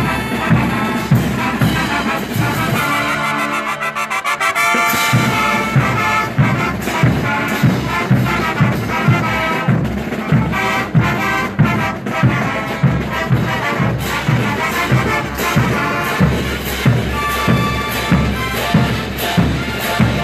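Mexican banda music: a brass band with trumpets and trombones over a steady bass beat. About three seconds in, the bass drops out for a short passage, and the full band comes back in about five seconds in.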